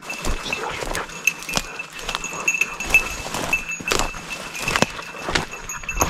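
Hurried footsteps crashing and crackling through dry leaf litter, twigs and brush on a forest slope, with a small bell jingling steadily throughout.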